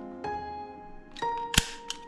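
A toy airsoft gun firing once with a sharp crack about one and a half seconds in, over steady background music.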